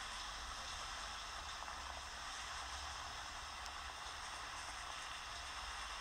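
Steady hiss of water splashing and trickling in a large outdoor fountain basin, over a low rumble.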